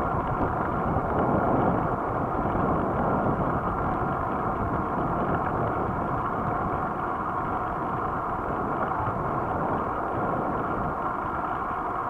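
Steady rushing wind and road noise from a bicycle rolling along asphalt, with wind buffeting the microphone of the bike-mounted camera.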